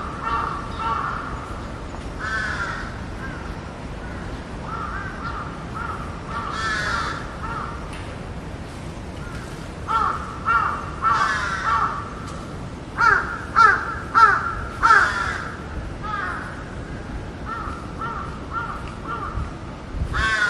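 Birds calling in short runs of repeated calls; the loudest is a run of four calls about two-thirds of the way in.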